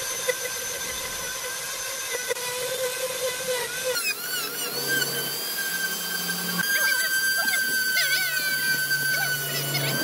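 Electric power tool carving wood, its motor a steady high whine. About four seconds in the sound changes abruptly to a different whine whose pitch wavers at times, as the tool meets the wood.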